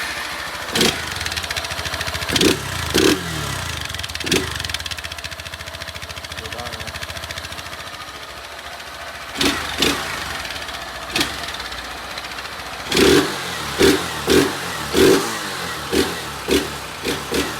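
Honda CG 160 Titan's single-cylinder four-stroke engine idling, its throttle blipped repeatedly, with a quick run of revs near the end, each falling back to idle. The bike runs a stock exhaust with a modified tip and no air filter, set up for more noise.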